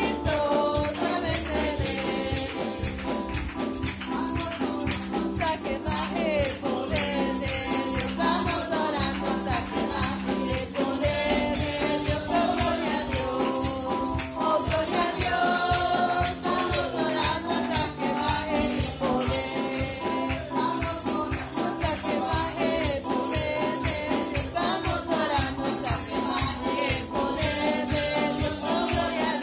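Live worship song: a woman singing lead into a microphone over a drum kit keeping a steady beat with ringing cymbals, and piano, with other voices singing along.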